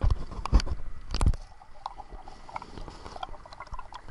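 Water sloshing and splashing at the surface right at a point-of-view camera, with three loud knocks in the first second and a half, then scattered soft clicks and crackles as the camera goes under water.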